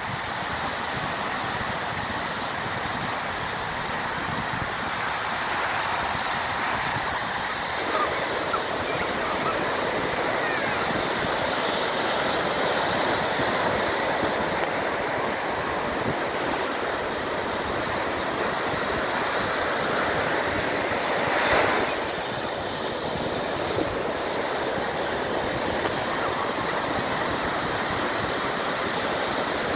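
Ocean surf breaking close by and washing up the sand in a continuous rush of foam. The rush grows fuller about a quarter of the way in, and one wave surges louder about two-thirds of the way through before falling back.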